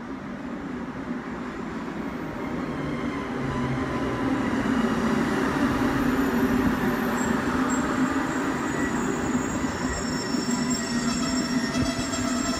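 Rhaetian Railway metre-gauge train, an electric locomotive hauling red coaches, rolling past close by, its running noise swelling as it nears. Thin high wheel squeal joins in about halfway through.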